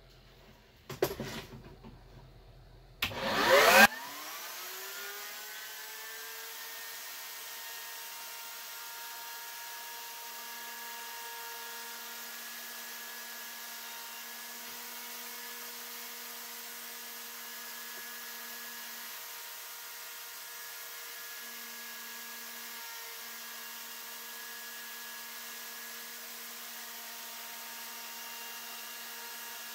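Kobalt fixed-base corded router, single-speed, mounted in its router table, switched on with a loud burst about three seconds in. Its motor whine rises over a couple of seconds to full speed, then runs steady and loud.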